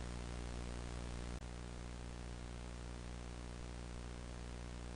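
Steady hiss with a low, buzzing hum beneath it, the noise floor of an old tape recording. A single click comes about one and a half seconds in, after which the noise is slightly quieter.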